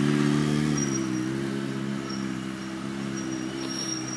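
Motorcycle engine running at low revs as the bike circles slowly, its pitch gently rising and falling with the throttle.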